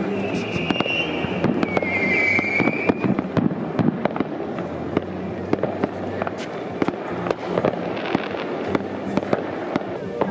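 Many fireworks going off at once: a dense, irregular run of pops and bangs, with a high whistling tone from about half a second to three seconds in.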